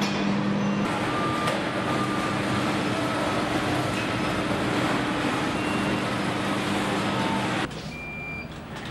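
Assembly-plant floor noise: a steady hum of machinery with a busy background din and a few short beeps. The noise drops to a much quieter room tone about eight seconds in.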